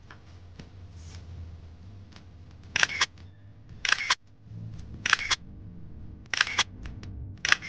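Camera shutter sound effect: five shutter clicks, each a quick double click, about one every second and a quarter, starting about three seconds in, over a faint low hum.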